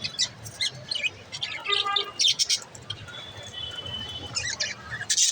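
Budgerigars chirping and chattering in quick short chirps. A warbled call comes about two seconds in, and a thin held whistle follows a little later.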